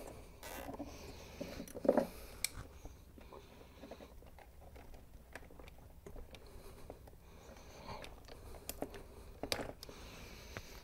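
Faint hand-work noises: a plastic zip tie fastened around wiring and snipped with side cutters, with scattered small clicks and rustles. A few sharper clicks come about two seconds in and again near the end.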